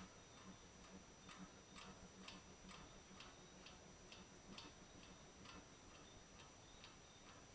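Faint 48-inch AEC ceiling fan running, with a soft regular tick about twice a second and a low hum from the motor.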